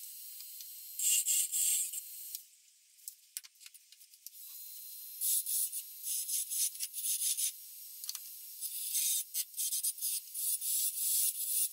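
Short, irregular bursts of dry rubbing and scraping on a wooden knife-handle blank at a wood lathe. The sound is thin and hissy, and the bursts come thicker in the second half.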